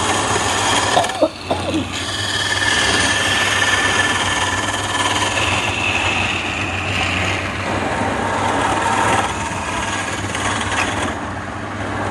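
Electric wood lathes running with a steady motor hum while hand-held turning chisels cut the spinning wood, a dense scraping noise with a high whine that wavers in pitch.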